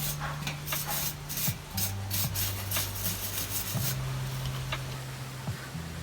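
Quick, repeated rubbing strokes of hand sanding or scrubbing on a bike part, about three a second, stopping about four seconds in, with a few light ticks after. A low background music line runs beneath.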